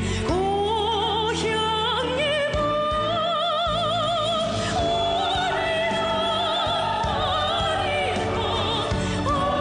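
A song: a solo voice singing long held notes with wide, even vibrato over instrumental accompaniment.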